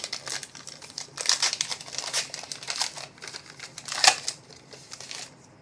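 Trading cards and their crinkly pack wrapper being handled, a run of rustling and crinkling bursts, with one sharp snap about four seconds in.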